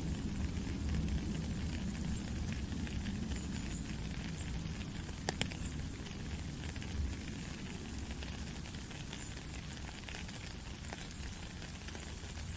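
Steady rain falling, an even hiss with many small drop ticks scattered through it and a sharper drop tap about five seconds in, over a low rumble.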